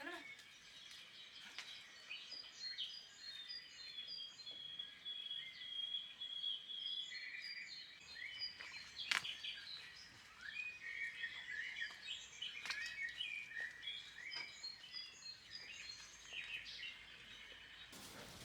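Several wild birds singing and chirping in spring, with one long trill about three to seven seconds in. A sharp click about nine seconds in.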